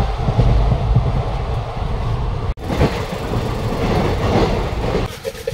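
Moving passenger train heard from inside an Indian Railways sleeper-class coach: a steady low rumble of the running coach, broken for an instant about two and a half seconds in.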